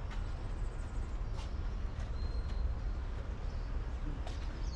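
Steady low rumble of outdoor background noise, with a few faint clicks and a brief faint high tone.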